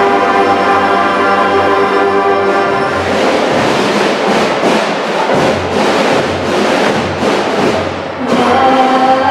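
Student mariachi ensemble of violins, guitars and trumpets playing. A chord is held for about three seconds, then a quick strummed rhythm takes over, and held notes return near the end.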